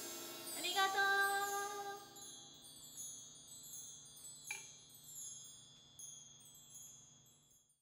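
Mark tree (bar chimes) shimmering in repeated high, tinkling runs over a last sustained chord that fades away, with one sharper strike about halfway through; the sound cuts off abruptly near the end.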